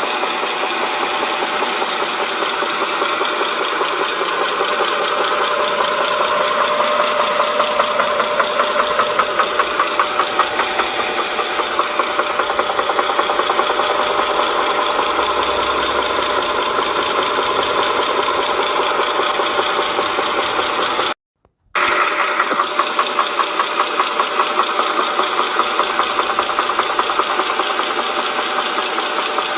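2007 Dodge Charger 2.7-litre V6 engine running with a fast, steady knocking rattle, which the owner suspects comes from a broken timing chain guide or tensioner. The sound cuts out completely for about half a second roughly two-thirds of the way through.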